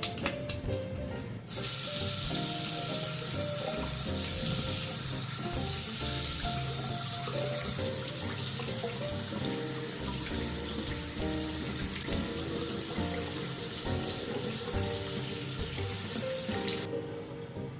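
Water running from a tap in a steady rush, starting about a second and a half in and stopping shortly before the end, over background music.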